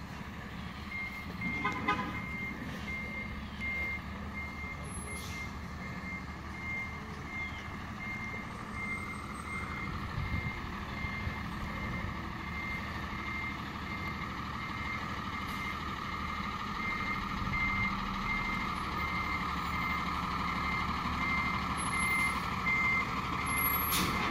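Delivery dump truck reversing: its backup alarm beeps at an even pace over the truck's running engine, growing slowly louder as it comes closer.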